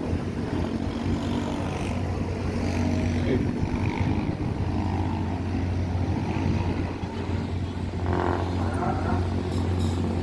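Steady low hum of a passenger ferry's engine machinery, heard from aboard on its open deck.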